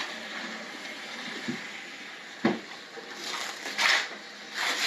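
A single sharp knock about halfway through, then a few short rubbing or scraping strokes near the end.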